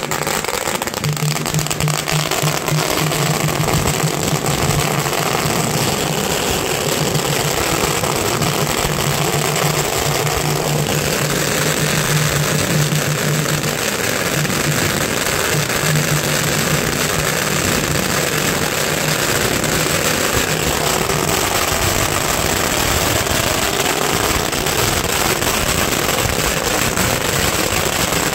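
Long strings of firecrackers on pavement going off in a dense, continuous rapid crackle of small bangs.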